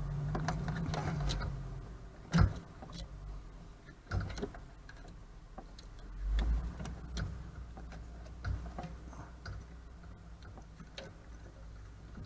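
Scattered clicks and knocks of hands handling plastic wiring connectors and the amplifier while plugging it in, the loudest knock about two seconds in, over a low hum that fades in the first two seconds.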